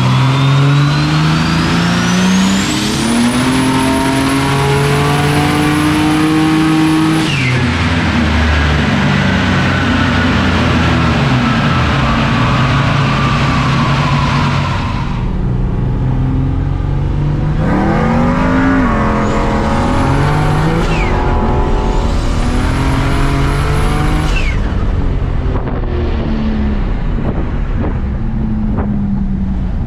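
Turbocharged Ecotec V6 under full-throttle acceleration: the engine revs climb while the turbo's whistle rises to a high steady pitch, then both fall away on lift-off. This happens twice, the second pull starting a little past halfway. The owner finds the turbo extremely laggy.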